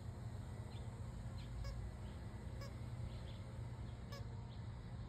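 Squeaky soccer-ball dog toy giving short, high squeaks as a dog chews it, about three clear squeaks a second or so apart, over a steady low rumble.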